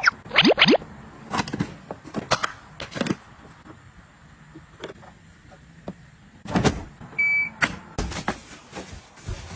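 Household items being handled: a series of clicks and knocks, with quick rising squeaks near the start and a brief electronic beep about seven seconds in.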